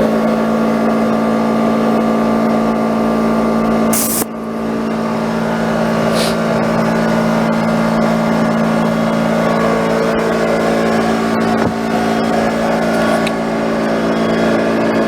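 Air compressor running steadily while air is fed into a tire's inner tube, with a sharp click about four seconds in.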